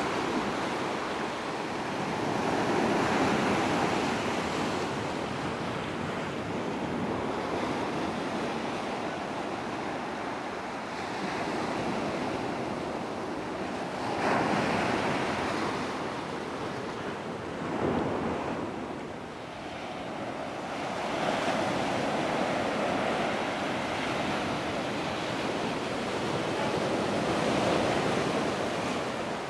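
Small ocean waves breaking and washing up a sand beach and over rocks, a steady rush of surf that swells and fades with each wave, with a couple of sharper, louder surges about halfway through.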